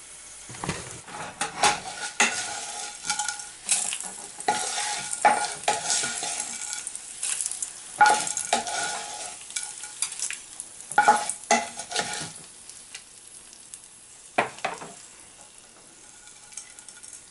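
Hot tadka (oil with mustard seeds, cumin and dals) sizzling and crackling as it is poured from the pan onto yogurt rice, with a spoon scraping and stirring. The crackling is thick for about the first twelve seconds, then dies down, with one more short burst near the end.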